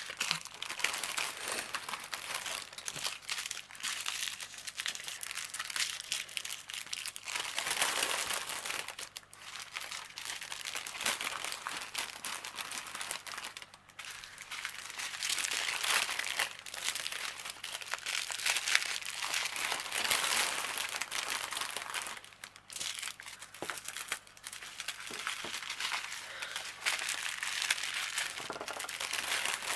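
Small plastic bags of diamond painting drills being handled and sorted, crinkling continuously with louder and quieter stretches.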